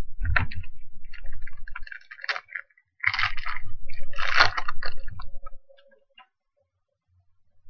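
Foil trading-card pack wrapper crinkling and tearing open in two spells of crackling, the second starting about three seconds in.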